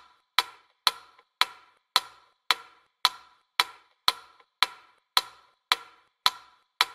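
Sharp, dry ticks repeating evenly, a little under two a second, each dying away quickly: a clock-like ticking sound effect.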